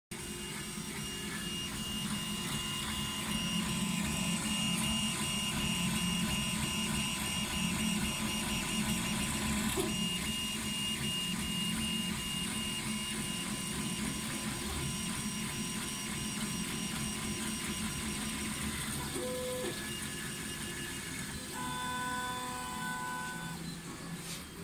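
MD-6C large-format FDM 3D printer running a print: steady machine noise from its stepper motors and fans, with tones that change as the print head moves.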